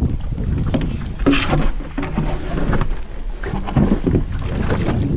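Paddleboard being handled beside a wooden dock: scattered knocks and scrapes, over a steady low rumble of wind on the microphone.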